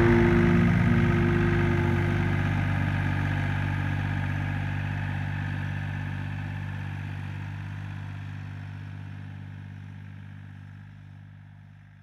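Engine of a McConnel Robocut tracked wood chipper idling steadily, slowly fading out.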